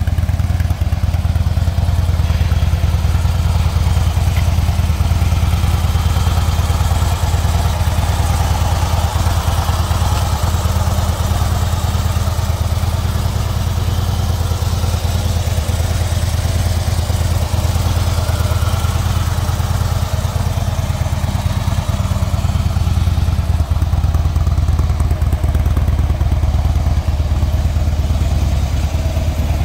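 2008 Harley-Davidson Road King Classic's Twin Cam 96 V-twin idling steadily, a deep, even low-pitched engine pulse with no revving.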